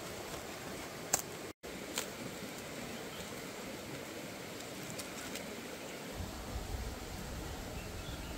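Quiet outdoor ambience: a steady hiss with two brief sharp clicks near the start and a split-second dropout between them. A low rumble comes in about six seconds in.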